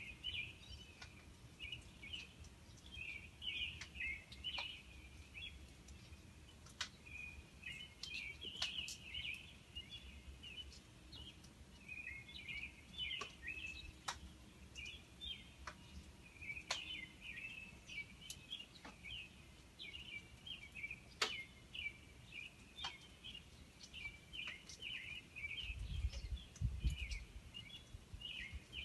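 Many small birds chirping and twittering without pause in an early-morning chorus, with scattered sharp clicks and a brief low rumble near the end.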